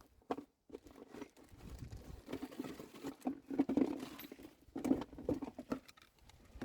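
Rustling and light clicks and clatter of new wheel-bearing parts and their packaging being handled.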